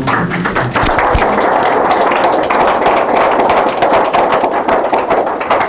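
Audience applauding: many people clapping steadily in a room.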